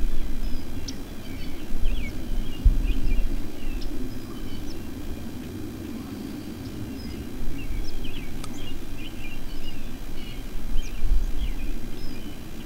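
Wind buffeting the microphone in gusts, with small birds chirping and calling throughout.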